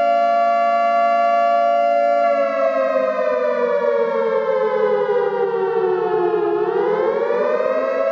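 Civil defence siren wailing, sounded as the warning for a mock air-raid drill: a steady held tone that slowly falls in pitch from about two seconds in, then rises back up near the end.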